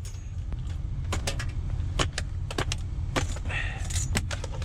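Irregular sharp clicks and clattering from handling scrap items while working a cord loose, over a steady low rumble.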